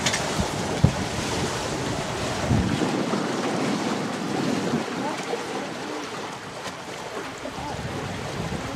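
Wind buffeting the microphone and water washing against the hulls of a small catamaran under sail, a steady rushing noise. A few short knocks sound in the first second.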